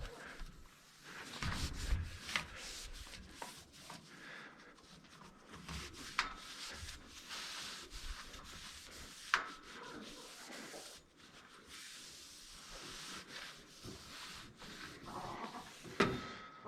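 A wet cloth (an old sock) rubbing and scrubbing along a barn's milking pipeline: a scratchy swishing that comes and goes with the strokes, with a few light knocks.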